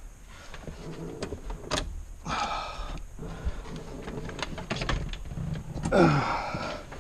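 Clicks, knocks and scraping of a stuck part being forced loose on a car's steering wheel by hand. A louder creak that falls in pitch comes about six seconds in.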